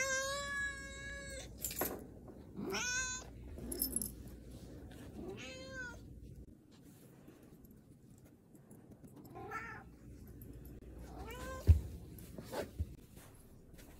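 Domestic cat meowing at its owner again and again: the first meow long and drawn out, the later ones shorter and spaced a few seconds apart. The captions call the first ones complaints and the later ones happy meows. Near the end there is a sharp thump.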